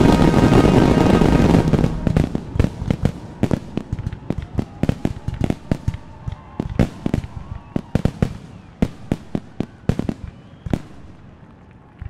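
Fireworks shells bursting in a quick, irregular string of sharp bangs, several a second, thinning out and getting quieter toward the end. Loud music fills the first two seconds, then drops away.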